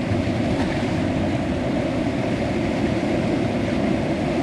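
Rushing river water through rough, fast-flowing rapids: a steady, loud, low rush.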